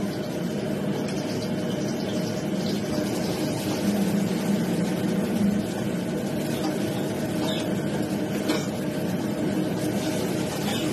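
Steady roar of a restaurant's gas wok range, a little louder about four to five and a half seconds in. A few light clinks of a metal ladle against a wok are heard late on.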